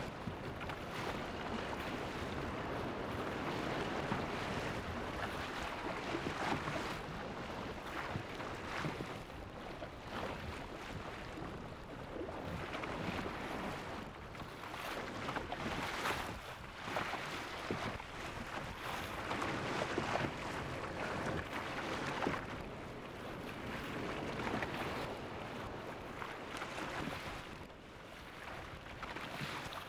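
Rushing noise like wind and sea surf, swelling and ebbing every few seconds, with no tones in it.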